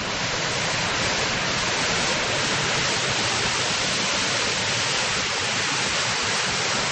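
A mountain creek running high with lots of water, roaring steadily as an even rush of water noise.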